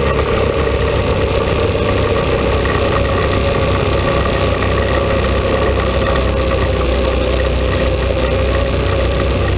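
ATV engine running steadily while riding along a trail, an even engine sound with no revving or changes in pitch.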